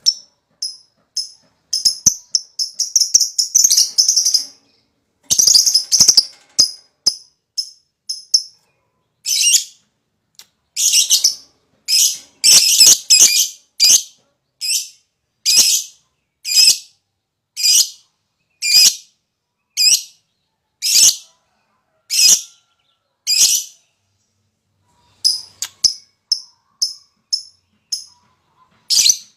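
Lovebird calling: a shrill chattering trill (the "ngekek") in the first few seconds, then a steady run of short harsh shrieks about one a second, and quick short chips near the end.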